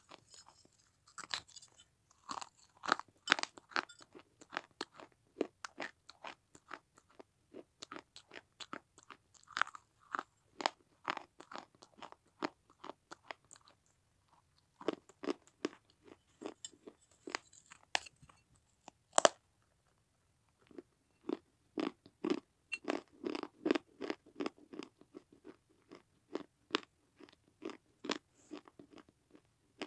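Teeth biting and chewing pieces of a fired terracotta clay saucer: rapid runs of sharp, brittle crunches in three bouts, with two short pauses between them.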